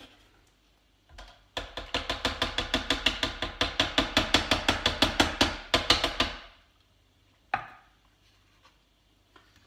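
Metal teaspoon scraping thick avocado purée off a food processor's blade and bowl in quick, even strokes, about seven a second for some five seconds, followed by a single sharp knock.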